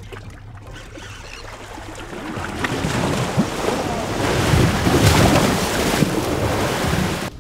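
Water splashing and rushing at a boat's stern, with wind on the microphone. It builds from about two seconds in and is loudest near the end, where a hooked tarpon thrashes at the surface, then cuts off suddenly.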